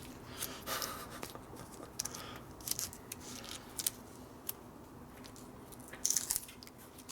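Masking tape being pulled off the roll, torn and wrapped around a cable: irregular short ripping and crinkling sounds, the loudest burst about six seconds in.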